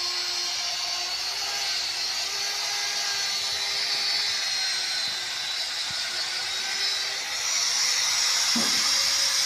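A small power tool running steadily on a workpiece, a hissing whir. About seven seconds in, it rises in pitch and gets a little louder.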